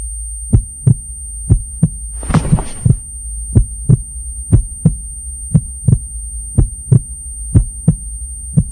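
Heartbeat sound effect: a double thump about once a second over a low steady drone and a faint high steady tone, with a short hiss about two and a half seconds in.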